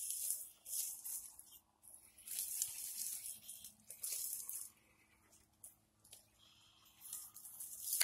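Axial SCX10 II Deadbolt RC crawler driving over rocks and dry leaves in stop-start bursts, its tires crunching and scraping. There are four short bursts, and the longest, in the middle, lasts about two seconds.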